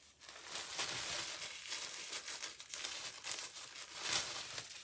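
Faint crinkling and rustling as a new replica football shirt is unfolded by hand, its paper packing insert crackling with the fabric.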